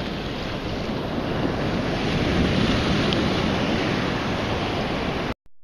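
Wind rushing over the microphone with choppy sea water and waves, a steady noise that cuts off suddenly near the end.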